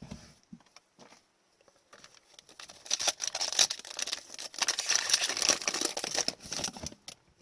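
Foil trading-card pack wrapper being torn open and crinkled. The crinkling builds about two seconds in and stops shortly before the end.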